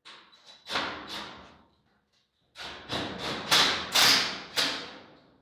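Sharp knocks on the hand-made sheet-metal body panels in two quick bursts, about a dozen in all, each dying away quickly; the second burst is the louder.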